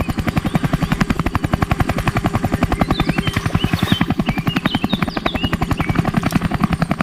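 Helicopter sound, most likely an added sound effect: rotor blades chopping in a fast, even beat, about a dozen beats a second, over a steady engine hum.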